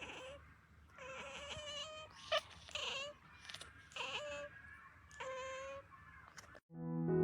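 Cats meowing back and forth in a string of short, whiny meows, about seven calls with brief pauses between them. Piano music cuts in sharply near the end.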